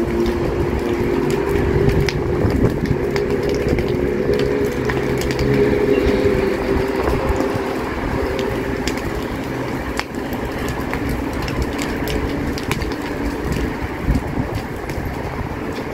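Dry brush burning, with many sharp crackles and pops over the rush of the flames. A low steady hum is strongest at the start and fades by about halfway through.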